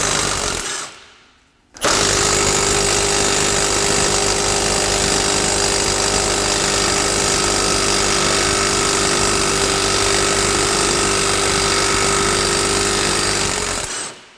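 Milwaukee Fuel cordless impact wrench hammering on a rear control-arm bolt to back it out. A short burst stops within the first second, then after a pause it hammers steadily for about twelve seconds and stops shortly before the end.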